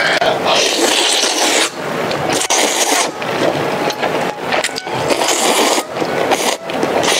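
Loud slurping of luosifen rice noodles into the mouth: several long slurps with short breaks between them.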